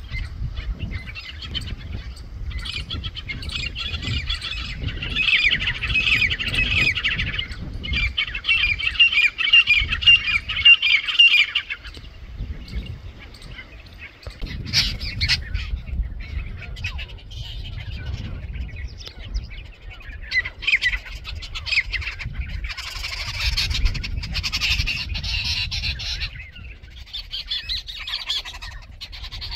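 A flock of birds calling in harsh, squawking chatter that comes in dense bursts of several seconds, over a low rumble.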